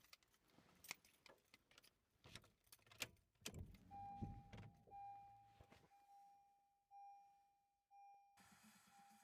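Clicks and rattles of a car key being handled and put into the ignition. Then a Honda's dashboard warning chime rings about once a second, five times, each tone fading away.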